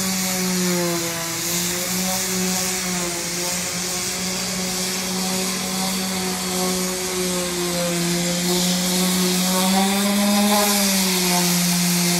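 Makita random orbital sander running steadily on a hardwood tabletop: a constant motor hum with a sanding hiss, its pitch wavering slightly.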